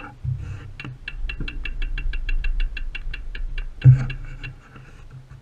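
Bicycle freewheel hub clicking at about eight clicks a second as the bike coasts slowly, over a low rumble of the tyres on rough asphalt, with a single loud knock just before the clicking stops.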